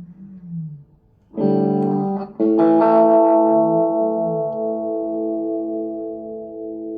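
Electric guitar (FABIO ST100 WH, a Strat-style guitar with three single-coil pickups) played through a small FABIO G-10 combo amp. A low note bends up and back down, then two strummed chords follow; the second chord rings on and fades slowly.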